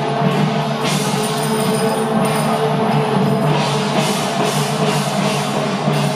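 Temple procession band: long horns hold steady notes over hand drums, with repeated crashing cymbals.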